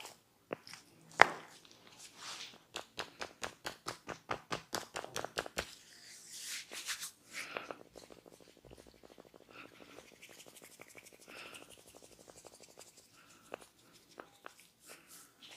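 Barber's hands working on oiled skin in a massage. There is one sharp crack about a second in, then a quick run of slaps, about five a second, for some three seconds. After that comes softer rubbing and squishing of palms on oily skin, with a few light clicks near the end.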